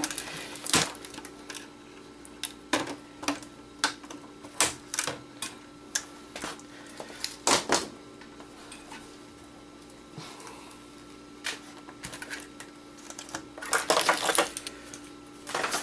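Wire snips cutting through wires, with plastic parts clicking and knocking as they are handled: a string of sharp, irregular snaps with short gaps between them and a quick run of clicks near the end. A faint steady hum sits underneath.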